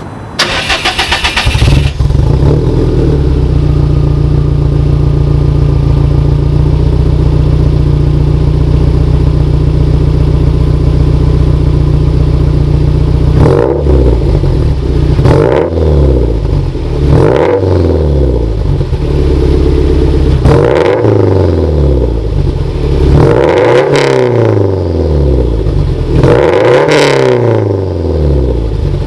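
2013 Subaru WRX STI's turbocharged 2.5-litre flat-four, catless and breathing through an Invidia Q300 exhaust, cranks and catches in the first two seconds. It idles steadily, then about halfway through is free-revved in a string of about eight short blips, each rising and falling back to idle.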